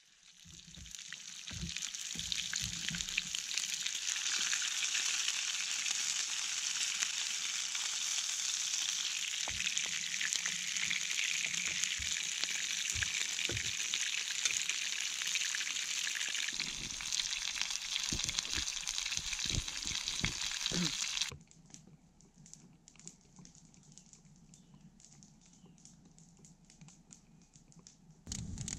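Meat patties sizzling in a frying pan over an open wood campfire, a steady loud hiss with scattered low knocks. The sizzle builds over the first two seconds and cuts off abruptly about 21 seconds in, leaving only faint clicks.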